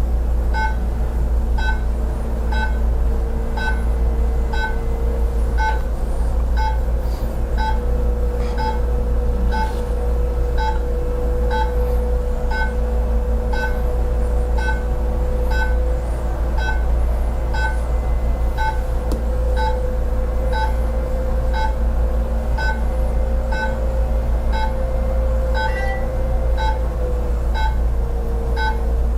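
An electric device hums steadily, with a faintly wavering whine over it, while a short beep repeats evenly a little more than one and a half times a second.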